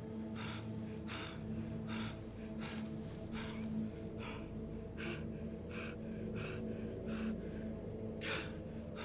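A man panting hard, with rapid gasping breaths about two a second: he is out of breath after a struggle.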